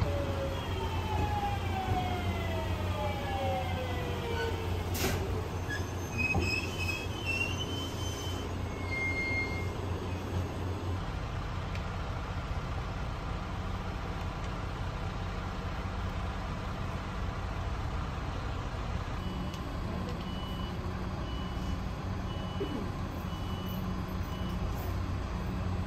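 Diesel train engine running with a steady low rumble, its pitch falling away over the first few seconds as it throttles down. A faint regular beeping, about once a second, comes in near the end.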